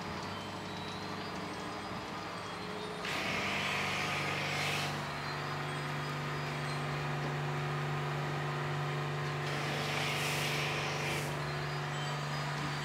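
Pressure washer motor starts about three seconds in and then runs with a steady hum. A snow foam lance hisses in two bursts of about two seconds each as foam is sprayed.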